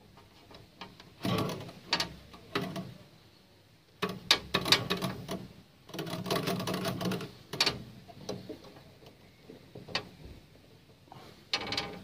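Metal clicking and scraping from a small hand tool worked against the freezer's wire-and-tube condenser, in several short bursts of rapid clicks with pauses between.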